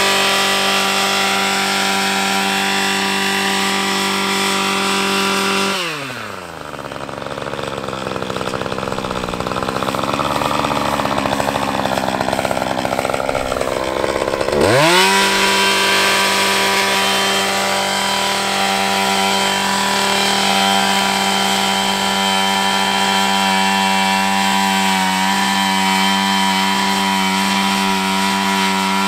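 Husqvarna 535LK two-stroke combi engine driving a power brush attachment at high revs, dropping to idle about six seconds in, then revving back up about nine seconds later and running at full throttle again.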